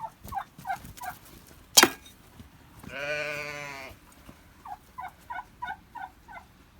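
Turkeys calling: runs of short yelping notes, one burst near the start and another near the end, with a longer, harsher call lasting about a second midway. A sharp knock about two seconds in.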